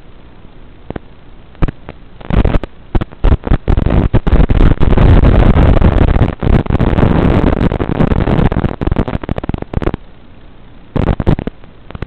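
Radio static on the analog FPV video receiver's audio: a faint hiss that breaks into loud crackling and popping about two seconds in, sustained for several seconds while the video signal breaks up, then easing and crackling again near the end.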